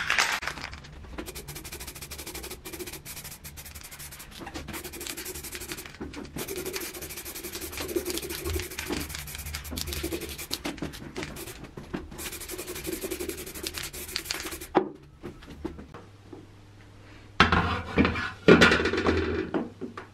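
Aerosol can of filler primer spraying in long hissing bursts with short breaks between them, for about fifteen seconds. Near the end come a few louder knocks and scrapes.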